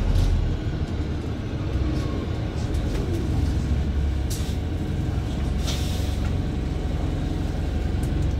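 Inside a Wrightbus StreetLite single-deck bus under way: a steady low rumble of engine and road noise, with two short hisses near the middle.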